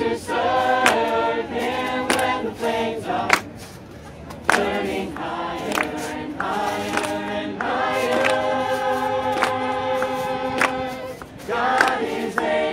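Small mixed-voice gospel ensemble singing a cappella in harmony, with sharp taps on a steady beat under the voices. The singers hold a long chord from about eight seconds in and end with a short final phrase.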